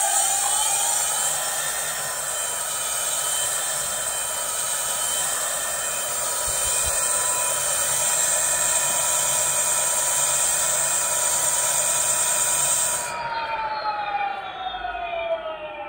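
Leaf 60V 3000W direct-drive brushless hub motor in a 26-inch fat-tire rear wheel, spinning free with no load. Its whine rises in pitch in the first second, then holds steady with a high hiss over it. About 13 seconds in the hiss cuts off and the whine falls in pitch as the wheel slows.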